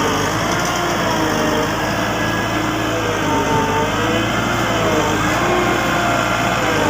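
Diesel engine of a Volvo vibratory road roller running steadily, with a constant low drone and a tone that slowly wavers up and down in pitch.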